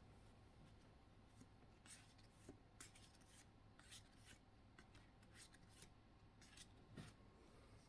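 Near silence with faint, scattered rustles and light clicks of trading cards and booster-pack foil being handled.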